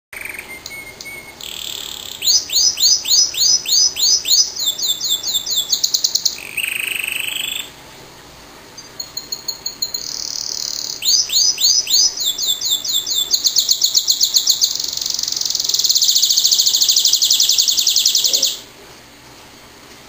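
Canary singing: phrases of rapidly repeated sweeping notes and trills, with a short pause about eight seconds in and a long, fast continuous trill near the end before the song stops.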